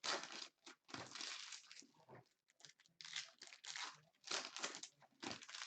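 Foil trading-card pack wrappers crinkling and tearing in irregular rustles as retail packs of Prizm basketball cards are ripped open and handled.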